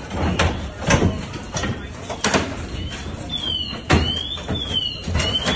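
Repeated heavy blows and bangs against a door as firefighters force it open, with the loudest strike about four seconds in. From about three seconds in, a high rising-and-falling whine repeats under the blows.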